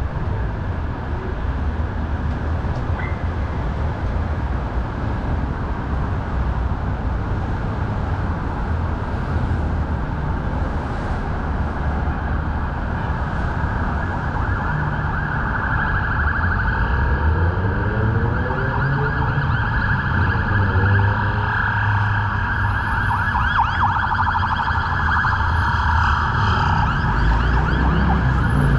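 Emergency vehicle siren rising over steady city street traffic about halfway through, wavering quickly and growing louder toward the end as it approaches.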